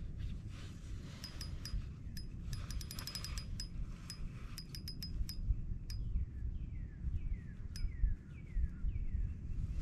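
Low wind rumble on the microphone with a scatter of sharp, ringing clicks, a quick run of them about three seconds in. From about six seconds in, a series of short falling chirps.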